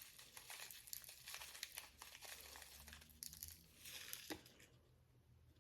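Faint crinkling and light clicking of small plastic miniature pieces and packaging being handled, tapering off near the end.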